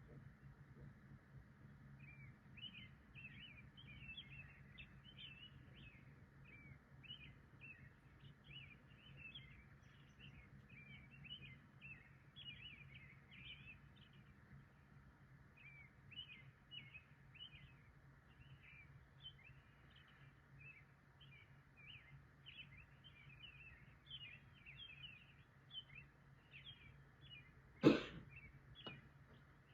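A faint, continuous chorus of short high chirps, several a second, over a steady low hum. Near the end, one loud, sudden cough cuts across it.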